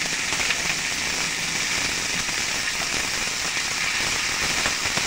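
Chopped garlic and ginger sizzling in hot oil and a little water in a frying pan: a steady, dense crackle with a few faint pops.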